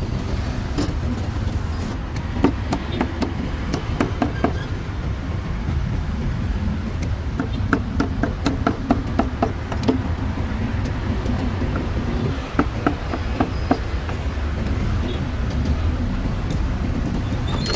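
Cleaver chopping meat on a cutting board: irregular runs of sharp strikes, a few seconds in and again through the middle, over a steady low street rumble.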